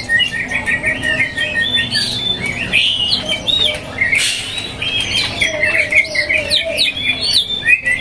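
Several caged songbirds chirping and calling over one another: a dense chatter of quick rising and falling chirps, with a held whistle in the first couple of seconds.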